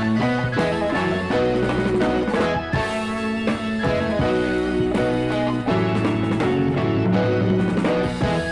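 Instrumental rock music from a vinyl LP: a band with guitar and drum kit playing sustained chords, with no singing.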